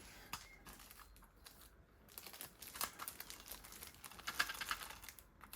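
Packaging crinkling and rustling as it is handled, in quick irregular crackles that grow busier about two seconds in.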